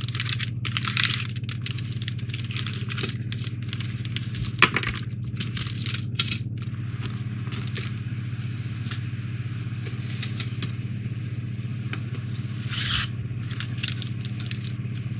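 Small model-kit parts being unpacked and handled: scattered clicks, clinks and rustles of plastic and metal pieces and their packaging, over a steady low hum.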